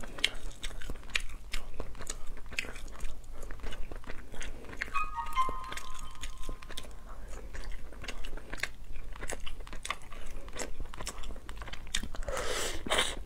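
Cooked crab shell cracking and crunching as fingers break the body apart, in many short sharp snaps, then biting into the meat and roe, with a louder rustling crunch near the end.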